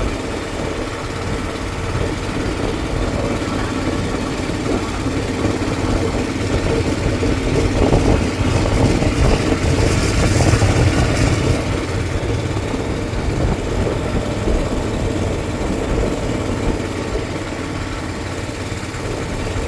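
Motorboat engine running steadily, a little louder about eight to twelve seconds in.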